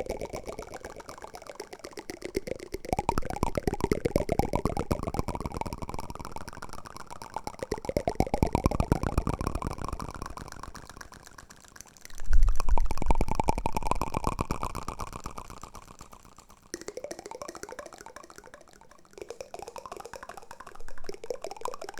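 Rapid wooden-spoon tapping and scraping as ASMR trigger sounds. The clicks come in runs of a few seconds, each rising in pitch, with a low thump about halfway through.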